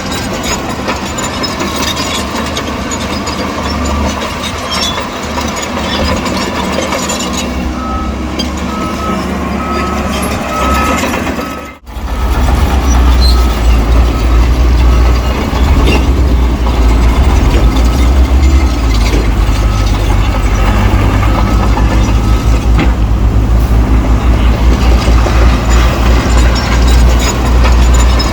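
Heavy diesel earthmoving machinery, a bulldozer and dump truck, running at a work site. Partway through, a reversing beeper sounds about twice a second for a few seconds. After an abrupt cut the sound turns into a much louder, deep, pulsing engine drone.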